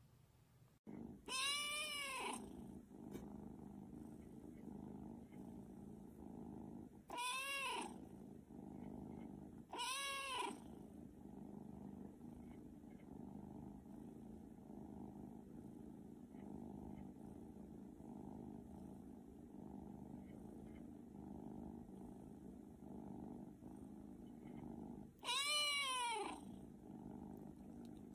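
Tabby kitten purring steadily while being stroked, with four short meows that rise and fall in pitch, one about a second in, two around the middle and one near the end.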